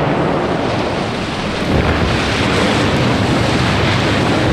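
Steady rushing noise of wind and sea waves, with a low rumble underneath.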